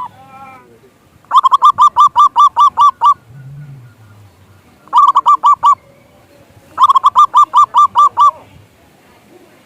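Zebra dove (perkutut) calling in three runs of quick, evenly repeated staccato notes, about seven a second, with short pauses between runs.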